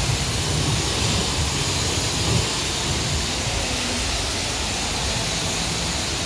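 Pressure-washer wand spraying water onto a car at a self-service car wash: a steady, even hiss of high-pressure spray.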